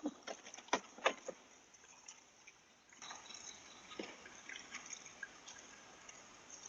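A doorknob being turned and rattled, heard through a doorbell camera's microphone: a few sharp clicks in the first second and a half, then scattered light ticks over a steady hiss.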